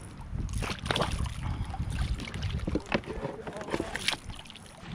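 Water splashing and sloshing in a series of short irregular splashes, over a steady low rumble of wind on the microphone.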